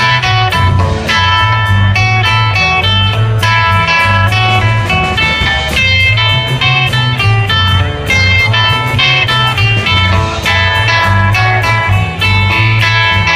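Live blues-rock band playing an instrumental passage: electric guitar lines over a steady bass and drums.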